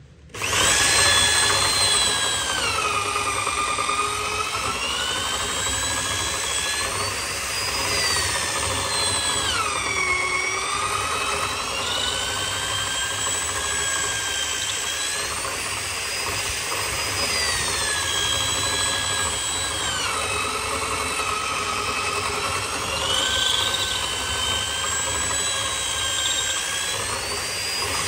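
Corded electric drill turning a long auger bit through the end of a thick solid-wood slab, boring a lengthwise hole. The motor starts about half a second in and runs without a break, its pitch dipping and recovering several times as the bit loads up in the wood.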